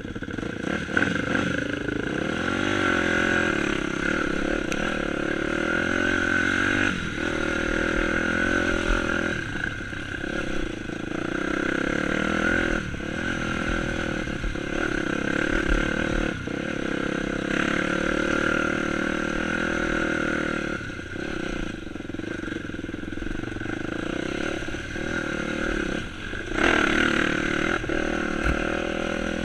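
Dirt bike engine running under way on a trail. The throttle is held open and then drops off briefly every few seconds before picking up again.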